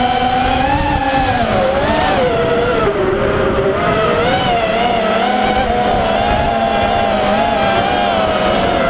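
FPV quadcopter's brushless motors whining without a break, the pitch rising and falling with the throttle and dipping about three seconds in, over a low rushing noise.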